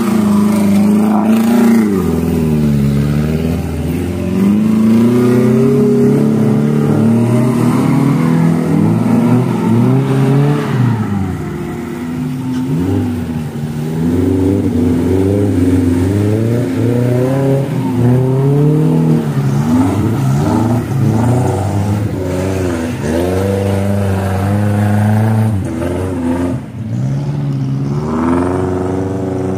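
Suzuki Jimny off-road engine revving hard, rising and falling in pitch again and again as it works the vehicle through deep mud.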